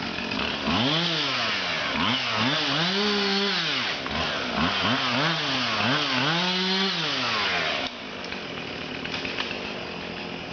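Two-stroke chainsaw revved up and down repeatedly, its pitch rising and falling in a series of surges, then dropping back to a lower, steadier running sound near the end.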